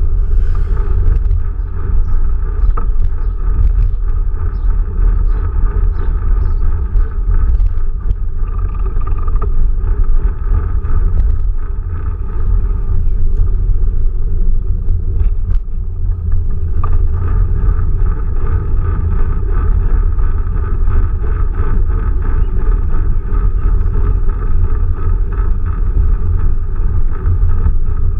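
Steady low rumble of a Quest velomobile rolling along a street: tyre and road noise booming through its composite shell, with a faint drivetrain whir on top.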